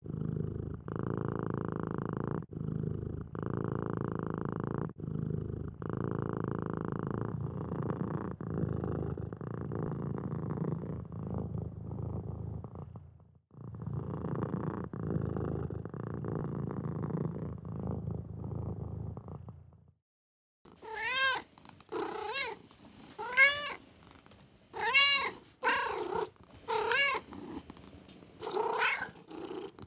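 Cat purring in long stretches broken by short pauses. After a brief silence about two-thirds of the way through, a cat meows repeatedly in short calls that rise and fall, about one a second.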